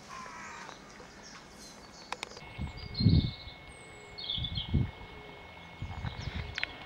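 Outdoor ambience with small birds chirping briefly a little past the middle, over irregular low dull thumps on the microphone, the loudest about three seconds in.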